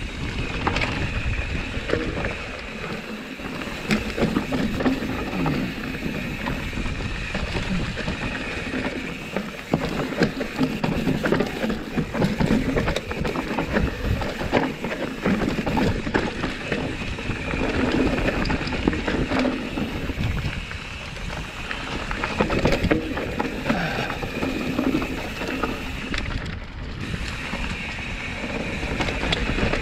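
Mountain bike ridden down a dirt trail: continuous tyre noise and the bike rattling over the bumps, with many small clicks and knocks, and wind on the microphone.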